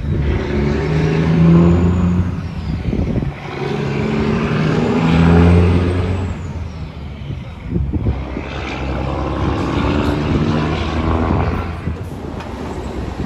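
Straight-piped diesel semi truck accelerating with a trailer, its loud engine note pulling through three gears with a short dip at each upshift, about three and a half and eight seconds in. The engine fades somewhat near the end.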